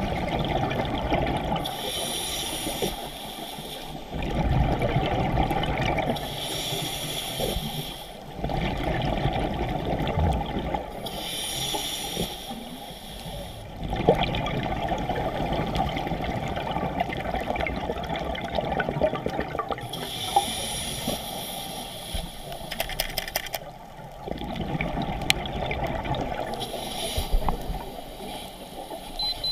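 Scuba diver breathing through a regulator underwater: a short hiss of each inhale, then the longer bubbling rumble of the exhale, repeating every five to eight seconds.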